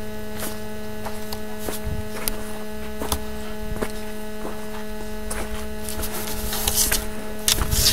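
Steady electrical hum with a few overtones, broken by scattered clicks, with louder rustling handling noise near the end.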